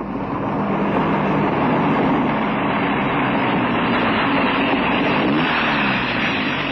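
Motor vehicle running steadily on the road, a radio-drama driving sound effect, with a brief shift in engine pitch about five and a half seconds in.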